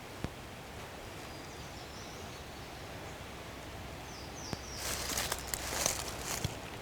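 Quiet woodland ambience with faint, short, falling bird chirps, then, about five seconds in, a run of rustling in dry leaves that comes and goes.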